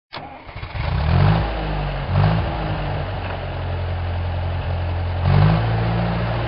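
An engine revving up in three short surges, about one, two and five seconds in, running steadily in between, with a hiss over it.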